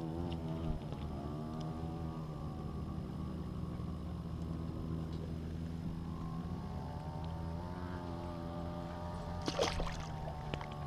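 Motorboat engine running steadily, its pitch wavering slightly. A brief splash of water comes near the end.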